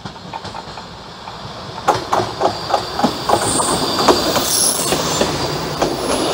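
Regio passenger train approaching and passing close by, getting louder, its wheels clacking over the rail joints in a quick, even rhythm from about two seconds in, with brief high-pitched wheel squeals near the middle.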